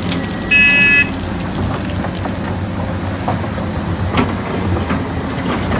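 Excavator engine running steadily with a low drone. One short, high beep comes about half a second in.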